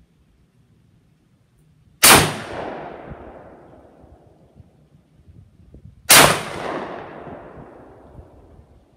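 Two gunshots about four seconds apart from an Ithaca Flues side-by-side shotgun firing 45 Colt rounds through barrel inserts. Each shot rings out and echoes, fading over about two seconds.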